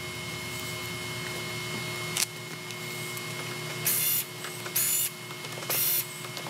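Steel bolts on a Clark pump being loosened with a 1/4-inch Allen wrench to break their torque: a sharp click about two seconds in, then four short, high-pitched metal squeaks roughly a second apart as the wrench turns. A steady machine hum runs underneath.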